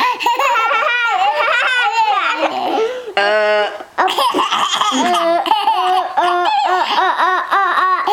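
A young child laughing hard in quick, rhythmic bursts of belly laughter, about three to four pulses a second, broken about three seconds in by a short held vocal sound.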